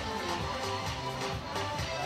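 Gymnastics floor-routine music with held notes over a steady beat, playing in the gym.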